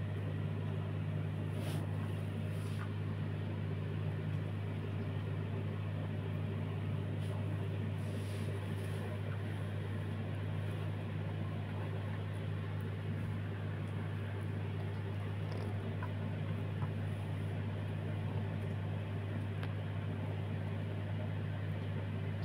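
Electric sewing machine running at a steady speed with a low, even hum while stitching fabric.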